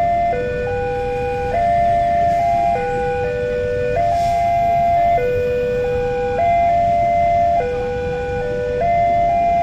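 Railway level-crossing warning alarm sounding while a train passes: an electronic chime of a few stepped notes repeating over and over, about a second per cycle, over a low rumble.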